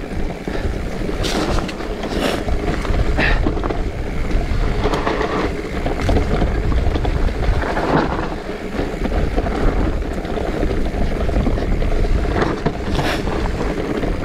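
Wind buffeting the microphone over the tyre noise of a mountain bike riding a dirt trail, with scattered knocks and rattles from bumps.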